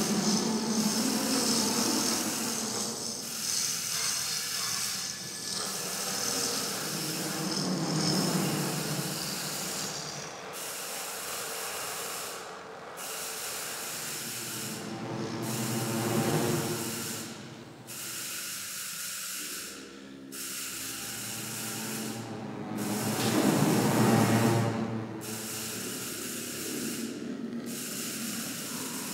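Improvised experimental music of amplified percussion on objects and live electronics: a dense hissing, rubbing noise texture with swelling low tones. In the second half the high hiss cuts out briefly in a steady pulse, about every two and a half seconds.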